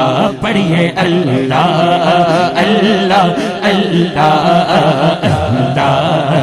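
A man chanting into a microphone in long, drawn-out notes with a wavering melodic ornament and no instruments: devotional Islamic recitation (naat/zikr).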